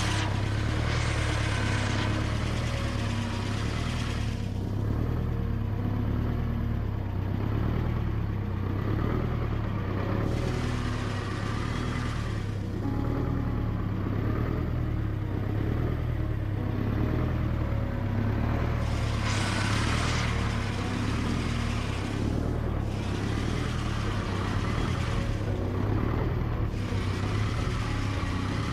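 Air-cooled VMZ tractor diesel engine running steadily after a rebuild, with brief surges in engine speed about a second in and again about twenty seconds in.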